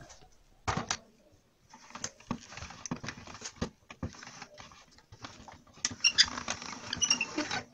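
Hand-cranked pasta machine rolling a sheet of chebakia dough through its steel rollers: a run of clicking and rattling from the crank and gears, with a few short high squeaks near the end.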